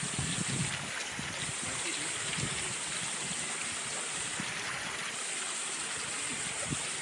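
Water splashing steadily from a small cascade into a pond. A high hiss rides over it, cutting out and back in a couple of times.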